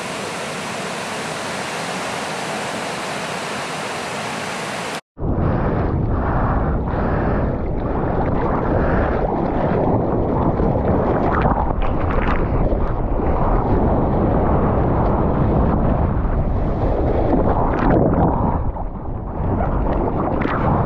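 Ocean surf washing steadily onto the beach; after a sudden cut about five seconds in, water splashing and sloshing close around a surfboard carrying a GoPro, more muffled and louder, with wind on the microphone.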